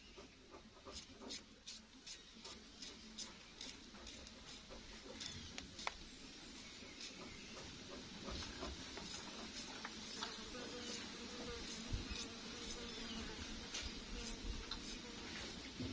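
Fresh green beans snapped and stringed by hand: a run of short clicks, several a second, over the first few seconds, then scattered clicks over a faint steady hiss.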